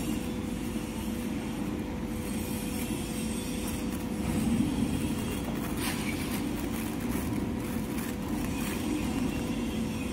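Factory machinery running with a steady low hum and a constant mid-pitched tone.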